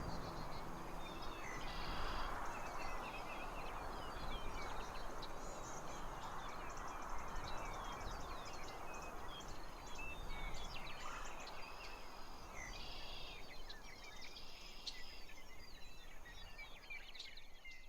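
Birds chirping and singing over a steady rushing background, fading out near the end.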